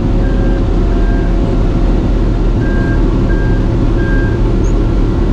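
Heavy logging machine's engine running hard and steadily while working to move, with a high short beep repeating about every two-thirds of a second that stops for over a second mid-way.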